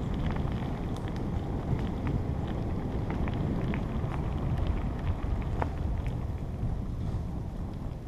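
Wind rushing over a GoPro's microphone on a moving bicycle, a steady low rumble, with scattered small clicks and rattles from the tyres and bike on a dirt trail.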